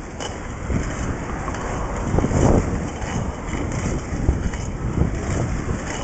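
Wind buffeting the microphone over the low rumble of inline skate wheels rolling on asphalt, rising and falling unevenly.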